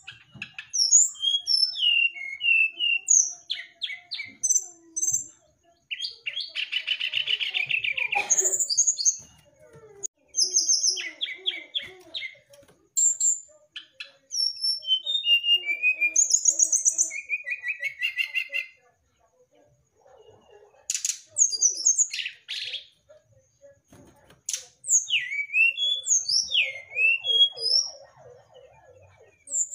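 Brown-chested jungle flycatcher singing in varied phrases of sharp sliding whistles, chirps and fast trills, with short pauses between phrases.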